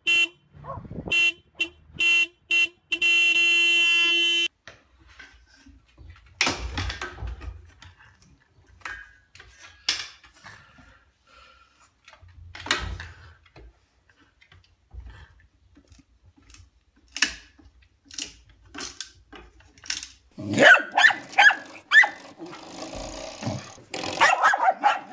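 A vehicle horn sounding in several short honks and then one long honk of about a second and a half, pressed by a dog sitting at the wheel. Scattered knocks follow, and near the end a dog barks in a rapid run.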